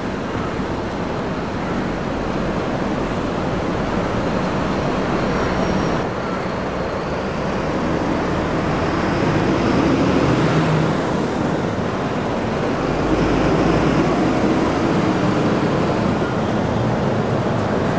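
Steady hum of road traffic, an even rush of noise that swells a little in places.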